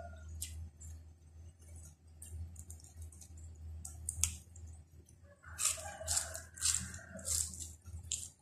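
Crisp Chinese cabbage leaves crackling as they are torn apart by hand, among close-up eating and chewing sounds. The crackles come thickest from about five and a half to seven and a half seconds in, with a drawn-out tone under them, over a steady low hum.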